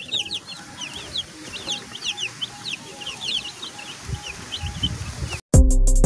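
A brood of broiler chicks peeping continuously, many short high peeps that each fall in pitch. Loud outro music with a beat cuts in suddenly about five and a half seconds in.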